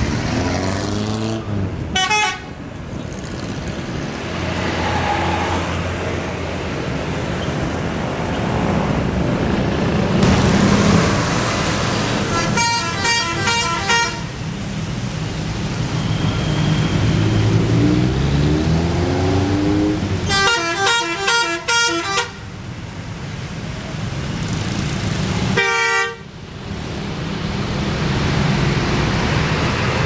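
Indonesian bus telolet horns playing four bursts of rapid, chiming multi-note toots, the middle two the longest. Between them a bus diesel engine revs up, over steady street traffic.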